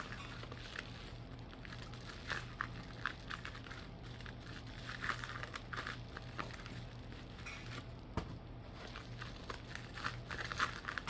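Packaging being unwrapped by hand: protective wrapping crinkling and rustling in short irregular bursts, with a few small tearing sounds.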